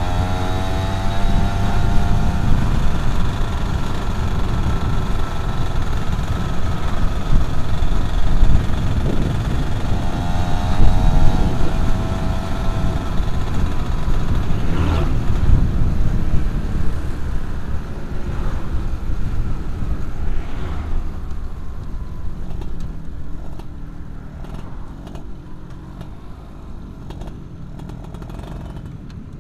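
Yamaha F1ZR two-stroke motorcycle engine under way, its pitch rising twice as it accelerates. It eases off and gets quieter over the last several seconds.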